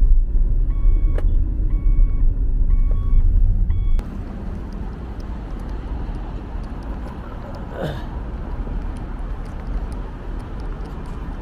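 Low rumble of a car heard from inside, with an electronic warning beep repeating about once every 0.7 seconds. About four seconds in, it cuts off abruptly to quieter, steady road and traffic noise.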